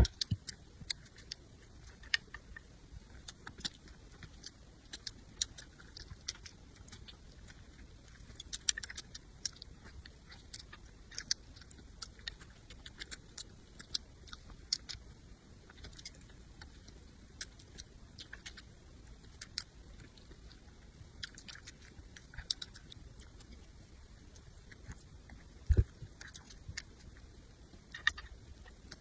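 Close-miked eating: chewing with sharp wet mouth clicks and smacks every second or so. A single dull thump comes near the end.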